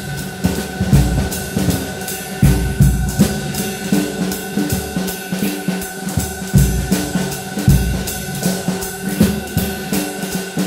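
Instrumental electronic music with a steady drum-kit beat of bass drum and snare hits over held synth tones.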